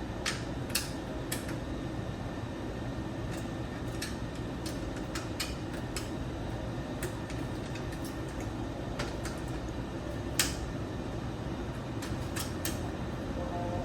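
Scattered light clicks and knocks of machine parts being handled and fitted together, with one sharper knock about ten seconds in, over a steady low background rumble.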